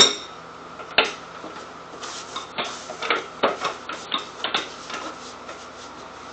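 Copper still pot and its manhole lid being handled: a sharp metallic clink with a brief ring at the start, a knock about a second in, then a run of light irregular clicks and taps over the next few seconds.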